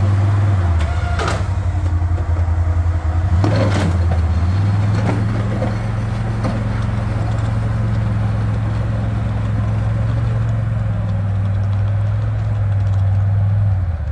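A tracked Can-Am ATV's engine runs steadily while it pushes snow with a front plow blade. Its note dips and picks up again twice in the first few seconds, and two brief clatters come about one and three and a half seconds in.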